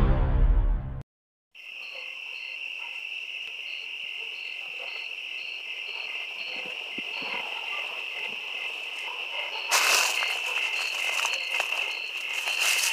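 The last second of eerie intro music cuts off, then a night-time insect chorus: a steady high-pitched trill with a separate short chirp repeating irregularly, roughly one to two times a second. About ten seconds in, crackly rustling of brush comes in over it.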